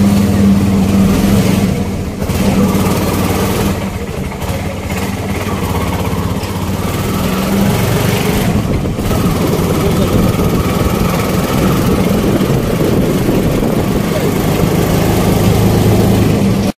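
Engine of a CNG auto-rickshaw running steadily as it drives along a road; its note drops about halfway through.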